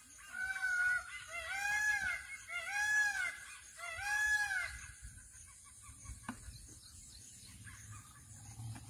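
A bird's loud call, given four times in a series about a second apart, each call rising then falling in pitch.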